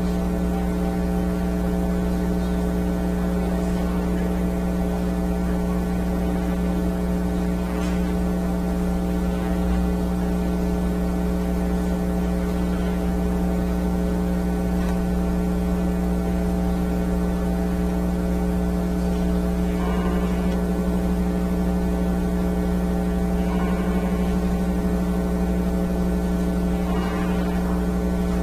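Steady electrical mains hum and buzz, one unchanging stack of tones that never varies. A few faint brief sounds rise over it in the last third.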